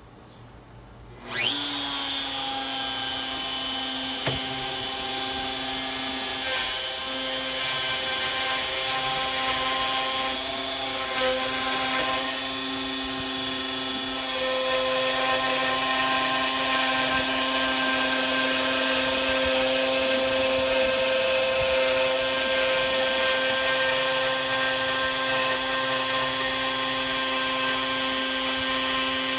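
Handheld electric router starting up about a second in, then running steadily with a high whine as it cuts grooves into an MDF tabletop.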